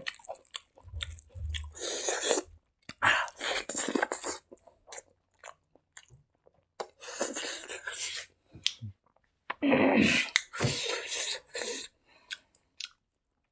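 Close-miked chewing of a handful of rice and gravy, with wet lip smacks and mouth clicks coming in irregular bursts and short pauses between mouthfuls.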